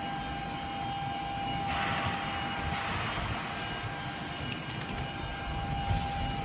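Machinery running with a steady high whine over a low rumble, with a short hiss about two seconds in.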